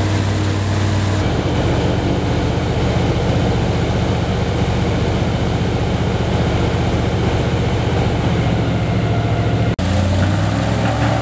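Airboat's engine and propeller running steadily. The sound changes abruptly about a second in, cuts out for an instant near the end, then resumes.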